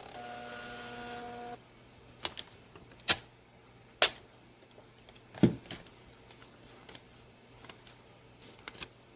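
Kids' instant-print camera's built-in thermal printer whirring steadily as it feeds out a photo on receipt-like paper, stopping about a second and a half in. A handful of sharp plastic clicks and taps follow.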